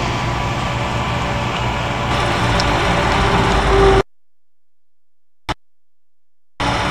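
Heavy farm machinery engine running steadily during a maize harvest. It cuts off abruptly about four seconds in, leaving a gap of silence broken by one short click, and the machine noise returns near the end.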